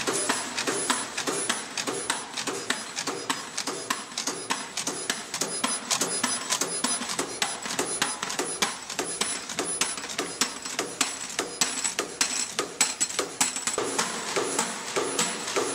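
Öhler CNC wire-bending machine running, feeding and forming wire: a fast, irregular clatter of sharp clicks and knocks, several a second, from its tooling slides.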